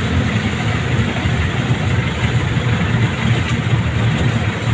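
Vehicle engine running with road noise, a steady low rumble while travelling.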